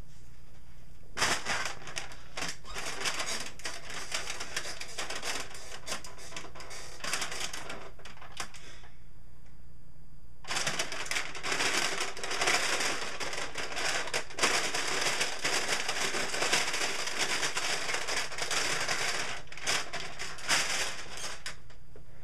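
Plant-based (PLA) SunChips compostable chip bag being handled, giving a dense, crackly crinkling full of sharp clicks. The crinkling starts about a second in, stops for a moment around nine seconds, then runs again until shortly before the end.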